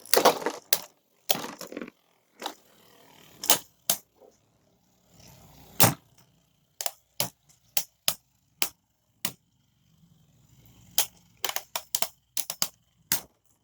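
Two Beyblade Burst spinning tops, a 3D-printed Drahken and a World Spriggan, clashing in a plastic stadium. A run of sharp, irregular clacks sounds as they strike each other and the stadium wall, with a faint whir of spinning between hits. The clacks come quicker near the end.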